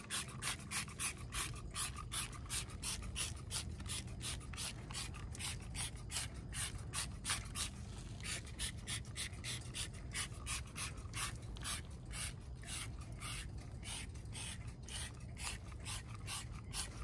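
Hand trigger sprayer on a bottle of wheel cleaner pumped over and over, each squeeze a short wet hiss of spray, about three to four squirts a second in a steady rhythm.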